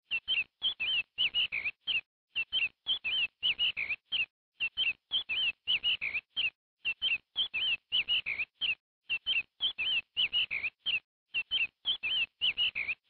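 A looped chirping sound effect: short, high chirps that slide downward, about three a second, in groups that repeat the same pattern every couple of seconds.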